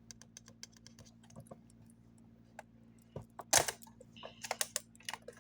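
Small clicks and crackles of a plastic snack wrapper being handled and opened. There is a louder crinkle about three and a half seconds in and a quick run of crackles just after.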